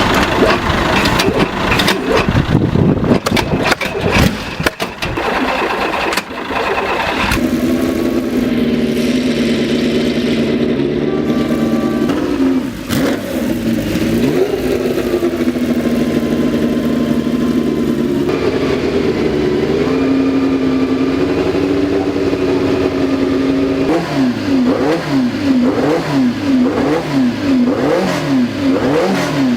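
Old engine cold-starting. For about the first seven seconds it fires raggedly with loud knocks, then it settles into a steady run. Its speed rises briefly twice. Near the end the speed swings up and down about once a second.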